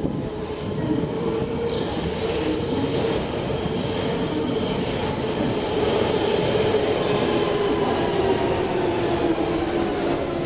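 London Underground Central line train running into the platform: a loud, steady rumble from wheels and motors with whining tones, one of which falls in pitch in the second half as the train slows.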